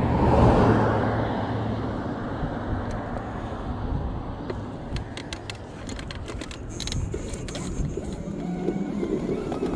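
Wind and road noise from an electric scooter riding on asphalt. A passing car swells up and fades about half a second in, and a run of sharp clicks and rattles comes around the middle.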